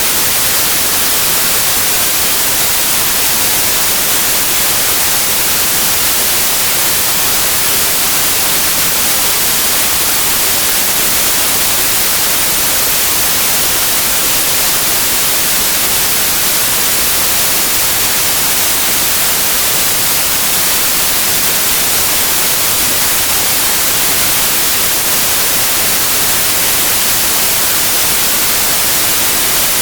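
Steady, loud white noise: an even hiss across all pitches, with no tone, rhythm or change.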